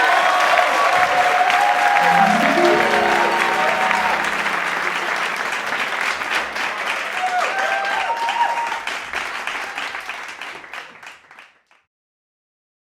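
Crowd applauding and cheering, with whistles over the clapping and a short falling run of low tones a couple of seconds in. It fades near the end and then cuts off.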